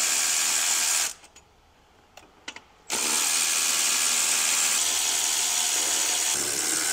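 Cordless power tool spinning a nut off the intake. It runs for about a second, stops for a couple of seconds with a few small clicks, then runs steadily again from about three seconds in to the end.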